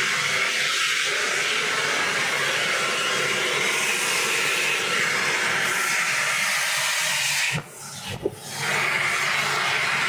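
Hand-held hair dryer blowing with a steady rushing hiss. Near the end it drops out for about a second, with a couple of clicks, then runs again.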